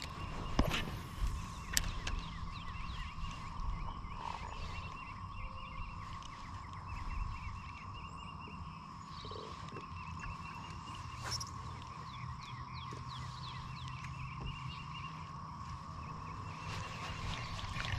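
Frogs calling: repeated quick series of clicky chirps over a steady drone, with a low hum underneath. A few sharp knocks come in the first two seconds.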